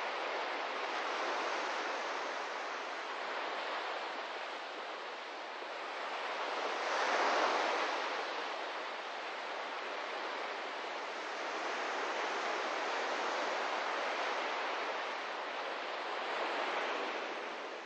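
Ocean surf washing onto a sandy beach: a steady rushing noise that swells and eases in waves, loudest about seven seconds in.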